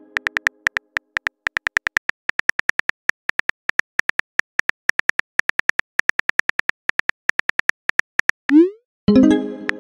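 Synthetic phone-keyboard typing clicks from a texting-story app: short pitched ticks in an irregular run of several a second as a message is typed out. Near the end comes a quick rising swoosh and then a decaying chime as the message is sent.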